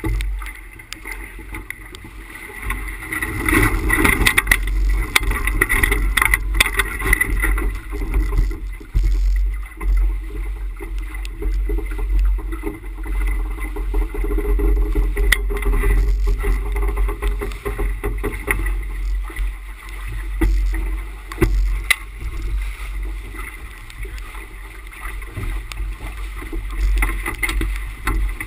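Water rushing and splashing past the bow of a sailboat running under spinnaker, with wind buffeting the microphone as a constant deep rumble. The rush swells and fades with the waves, with a few sharp knocks.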